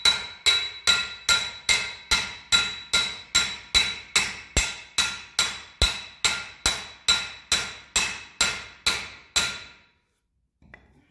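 Hammer striking a steel pipe in a steady rhythm, about two and a half blows a second, each with a metallic ring. The blows drive a new carrier (hanger) bearing down onto a two-piece driveshaft, and they stop about a second before the end.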